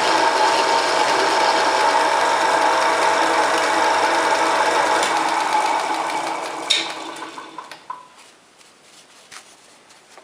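Homemade mini lathe, driven by a 1 hp single-phase electric motor, running with a steady noise; the noise comes from the lathe resting unbolted on two wooden blocks. About five seconds in it winds down to a stop, with a sharp knock and a few clicks as it stops.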